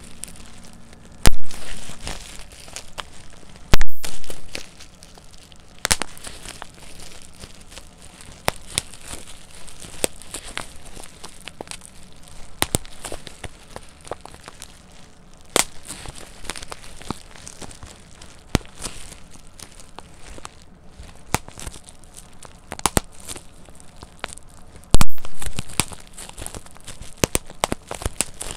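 Plastic bubble wrap being squeezed between the fingers: continual crinkling of the plastic, with many small clicks and crackles and a few loud sharp pops as single bubbles burst, the loudest about a second in, about four seconds in and near the end.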